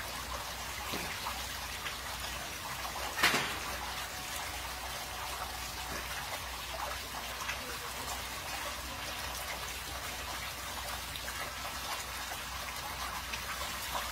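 Hot-spring bath water trickling and lapping steadily around soaking capybaras, with scattered small drips and one sharper, louder splash about three seconds in.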